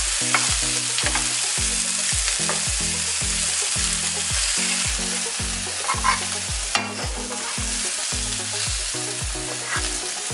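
Spice-coated sardines sizzling as they shallow-fry in coconut oil in a nonstick pan, with a steel ladle scraping and turning them. A low repeating beat of about three strokes a second runs underneath.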